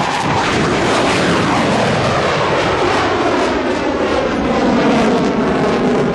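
Blue Angels F/A-18 Hornet jet taking off at full power and climbing away: a loud, steady jet roar whose pitch falls over the first couple of seconds as the jet pulls up and away.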